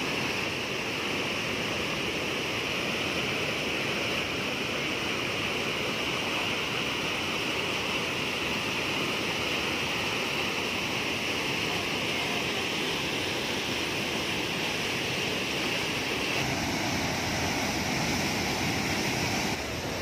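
Panimur Falls on the Kopili River: white water rushing through rapids and pouring over rock ledges, a steady, unbroken roar of water.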